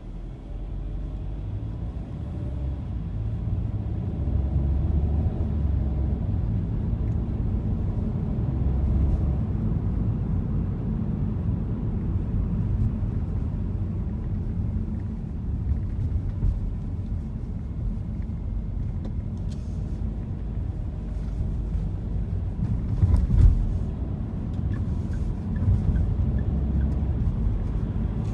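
Low engine and road rumble heard from inside a car's cabin, growing louder over the first few seconds as the car pulls away and then holding steady while it drives. A brief thump about two-thirds of the way through.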